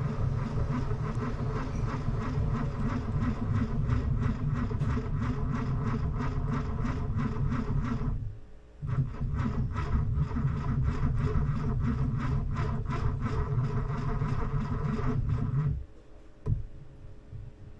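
Shimano Stradic SW 4000XG spinning reel being cranked to retrieve line: a steady gear whir with fast even ticking. It runs in two long stretches with a short break about eight seconds in.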